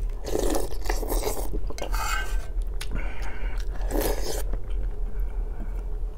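Close-miked eating: slurps of borscht off a spoon, about half a second in and again about four seconds in, with chewing of black bread between them. The metal spoon clinks and scrapes against the metal bowl.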